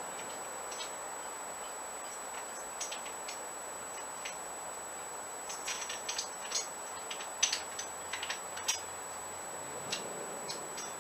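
Scattered light clicks and taps from hand work on a boat's deck repair, most of them bunched together about halfway through, over a steady faint hiss.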